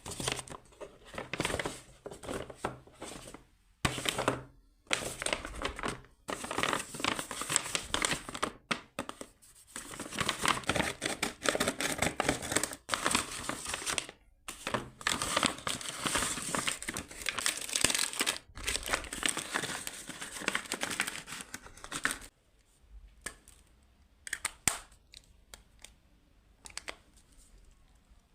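Blind bag packaging being crinkled and torn open by hand, dense irregular crackling with short pauses. About three-quarters of the way through it thins to occasional faint rustles.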